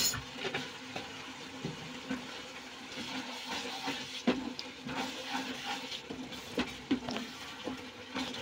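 Wet onion-tomato masala sizzling and bubbling in a non-stick kadhai as a wooden spatula stirs it, with scattered taps and scrapes of the spatula against the pan.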